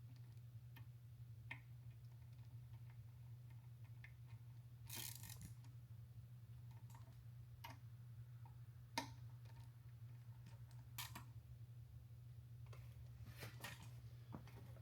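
Near silence with a steady low hum, broken by a few scattered light clicks and short rustles of hand tools and metal transmission parts being handled. The sharpest click comes about nine seconds in.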